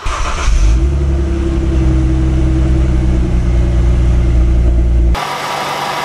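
Mercedes-Benz C300's M272 V6 engine starting on freshly fitted spark plugs. It fires up at once, revs up over the first second and settles into a steady idle. About five seconds in, the sound changes suddenly to a quieter idle with a higher whine.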